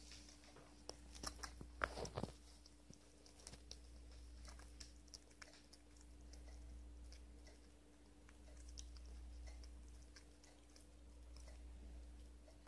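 Faint, soft clicks of an eastern gray squirrel chewing and biting watermelon, with a cluster of louder clicks about two seconds in. A low steady hum runs underneath.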